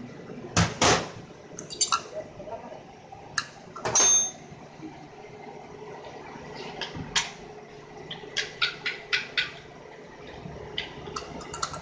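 Sharp clicks and clinks of metal parts being handled: an LPG kit reducer's diaphragm housing and its small screws. Two louder knocks come about half a second in and about four seconds in, and a quick run of about six light taps around eight to nine seconds.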